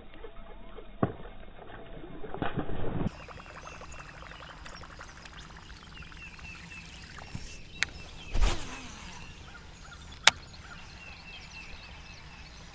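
Buzzbait being retrieved across the pond's surface, its spinning blade churning the water in a steady gurgle. A louder splash comes about eight and a half seconds in, with sharp clicks just before and about two seconds after it.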